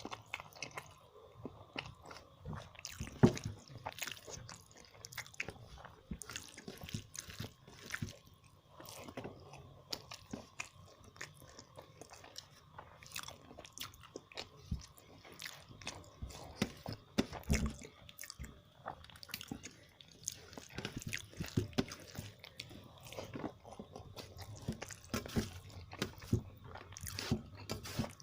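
Close-up eating sounds: irregular chewing and biting with small crunches and wet mouth clicks as a person eats a meal of fish and chicken curry.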